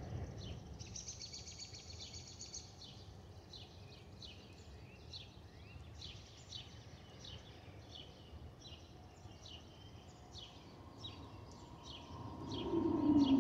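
A songbird chirping over and over at about two chirps a second, with a buzzy trill about a second in, above the low rumble of a distant jet. Near the end the approaching Airbus A320 grows louder, and a whistle falling in pitch comes in: the A320's typical whistle from the fuel over-pressure protector (FOPP) vents under its wings.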